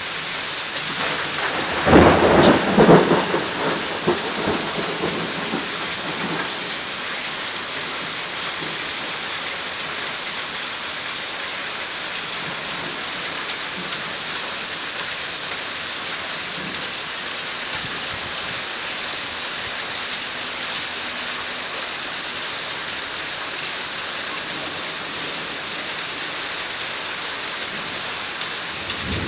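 Heavy rain falling steadily, with a loud clap of thunder about two seconds in that rumbles away over the next few seconds.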